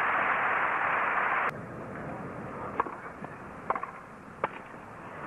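Crowd applauding, cut off suddenly about a second and a half in. Then a tennis rally: a few sharp pops of the ball struck off rackets.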